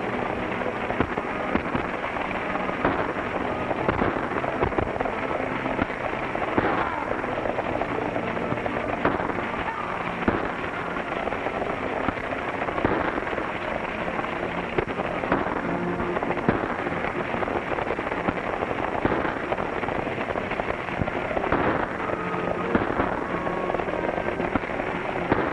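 A stagecoach team galloping with the coach rattling along: a dense, continuous clatter of hoofbeats and wheels, with many sharp cracks scattered irregularly through it.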